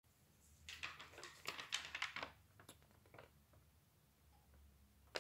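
Faint crisp rustling of a large sheet of paper being handled and lifted, in a quick cluster during the first couple of seconds, followed by a few light taps.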